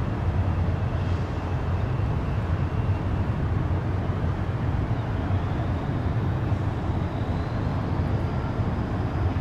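Wind blowing over the microphone on a cruise ship's open top deck, with a steady low rumble underneath.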